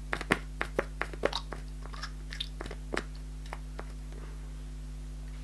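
Plastic pump dispenser on a body-lotion bottle being pressed, giving a fast irregular run of sharp clicks and squelches that thins out after about two seconds and stops near four seconds in.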